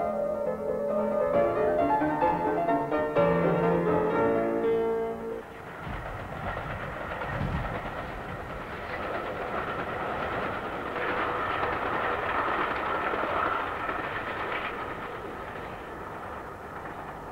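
Piano music for about the first five seconds, then the running noise of a passenger train hauled by an electric locomotive, swelling in the middle and fading towards the end.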